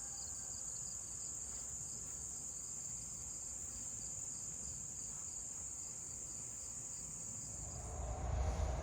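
Insects trilling steadily in a continuous high-pitched chorus. The chorus fades near the end as a low rumble comes in.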